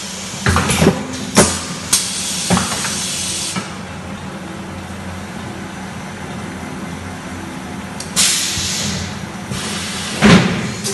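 Paper tube production machinery running with a steady low hum. Several sharp metallic clanks come in the first three seconds and one loud clank near the end, along with two long spells of hissing.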